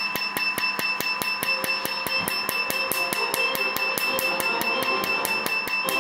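Handheld laser tattoo removal device firing rapid, evenly spaced pulses at the skin, about five sharp snapping clicks a second, over a steady high-pitched tone.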